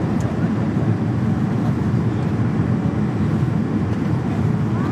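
Steady cabin noise of a jet airliner in flight: a low, even drone of engines and air rushing past the fuselage, heard from inside the cabin.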